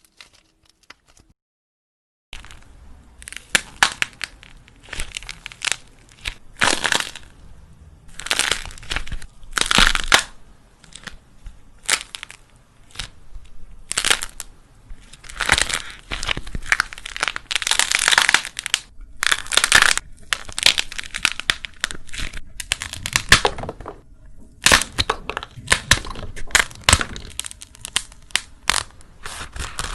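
Dried clay being squeezed and cracked by hand: a dense run of crisp cracking and crunching with many sharp snaps, starting about two seconds in.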